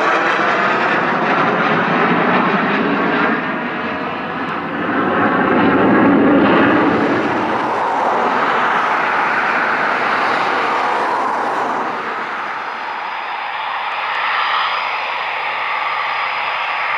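Eurofighter Typhoon jets' twin EJ200 turbofan engines running loud, with sliding tones and a swell that peaks about six seconds in and another near fourteen seconds, as jets move past.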